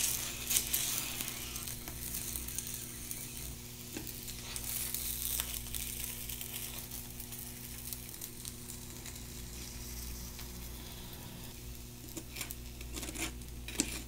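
Soy sauce sizzling on a block of kirimochi rice cake frying in a nonstick pan, starting sharply the moment the soy-coated cake is set down and swelling again about five seconds in. A steady low hum runs underneath, with a few light clicks near the end.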